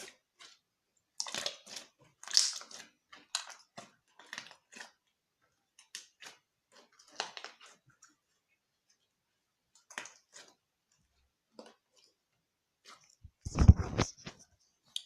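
Clear-glue slime being squished and worked by hand, giving irregular wet clicks, crackles and pops of trapped air. Near the end there is a louder, deep bump.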